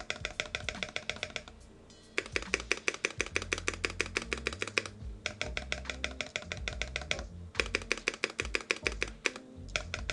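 Spacebar of an NK65 mechanical keyboard tapped rapidly and repeatedly in several quick runs with short pauses between them. The taps are even clicks that still carry a little echo, though less than the builder remembers.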